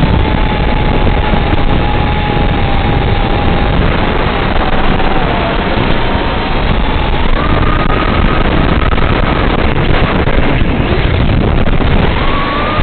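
FPV racing quadcopter's motors and propellers running, a harsh buzzing with a whine that rises and falls with throttle: it steps up about seven seconds in, drops back after nine seconds and climbs again near the end. Wind noise runs through it.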